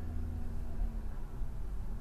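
Low, steady vehicle rumble heard inside a car's cabin, with a steady hum that fades out just over a second in.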